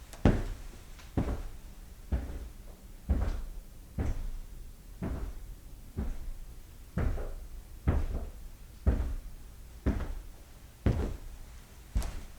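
Footsteps of shoes walking at an even pace, about one step a second, each step a sharp knock with a low thud under it.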